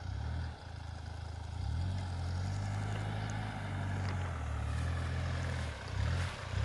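Hyundai Terracan SUV engine running at low revs as it crawls over rough off-road ground, a low drone whose note rises and falls with the throttle.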